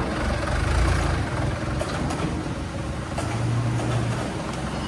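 Steady low mechanical hum and noise of running machinery on a factory floor, with a few faint clicks.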